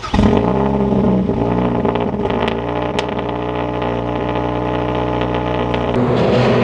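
Mazdaspeed3's turbocharged 2.3-litre four-cylinder through a catless, near-straight-piped CPE exhaust, flaring briefly in pitch and then settling to a steady idle. The sound changes character near the end.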